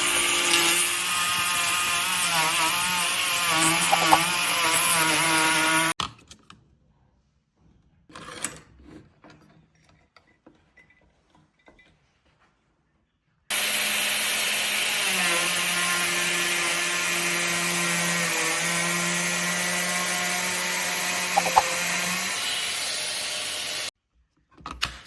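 Parkside PPPAKF 12 A1 12 V cordless trim router running and cutting wood, switched off suddenly about six seconds in. A few light handling knocks follow. The router then starts again and runs for about ten seconds before stopping, its motor note dropping a little soon after it starts as it takes up the cut.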